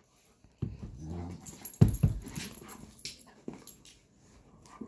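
Two dogs play-wrestling: low, rough vocal sounds and scuffling start about half a second in. A sharp knock about two seconds in is the loudest moment, and a few small clicks follow as the play dies down.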